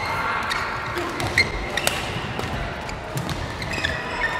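Badminton doubles rally: sharp racket-on-shuttlecock hits every second or so, with short high squeaks from court shoes on the mat.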